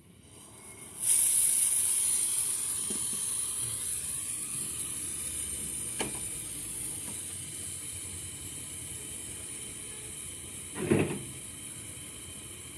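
Pressurized gas hissing out of a refrigerator's refrigerant pipe during flushing of the clogged line, starting abruptly about a second in and slowly tapering off. A short click around the middle and a brief louder burst near the end.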